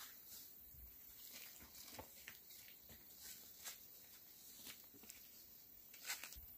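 Near silence, broken by a few faint, scattered clicks and ticks, the most distinct about six seconds in.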